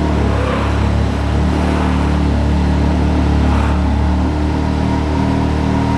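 Can-Am Maverick X3 Turbo's three-cylinder turbo engine idling steadily after being started.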